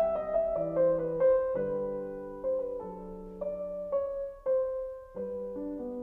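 Gentle piano music with no singing: single notes and chords that change every second or so.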